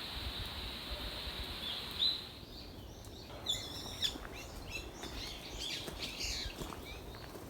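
Several wild birds chirping and calling in quick, short notes that slide up and down in pitch, many overlapping. For the first two seconds a steady high-pitched hiss sits under the sound before the chirping takes over.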